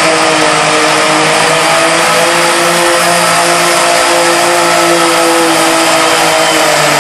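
Turbocharged diesel garden pulling tractor running flat out under load as it drags a weight-transfer sled, its loud engine note holding nearly steady throughout.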